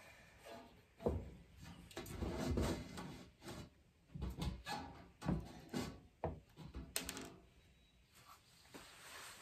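Copper pipe and elbow fittings handled and pushed together for a dry fit: a series of irregular knocks and clunks, with a sharp metallic click about seven seconds in.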